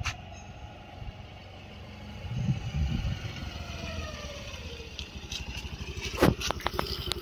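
Honda Activa scooter's small single-cylinder four-stroke engine coming closer and easing off, its note falling, then idling close by with a steady low beat. A sharp knock about six seconds in.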